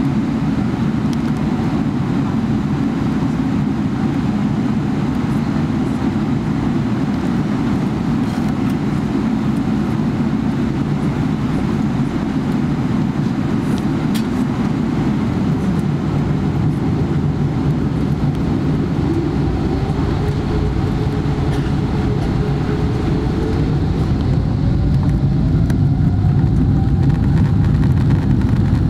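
Cabin noise inside a Boeing 777-300ER: a steady low rumble from its GE90 engines and airframe. In the last few seconds a whine rises in pitch and the noise grows louder as the engines spool up.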